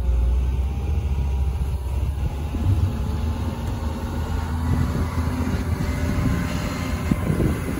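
Case 721G wheel loader's diesel engine running steadily at close range as the machine works with a snow pusher and drives past.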